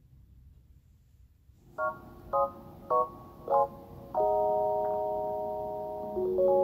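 Quiet room tone, then a short musical jingle about two seconds in: four quick ringing notes about half a second apart, followed by a held chord that slowly fades, and a second held chord near the end.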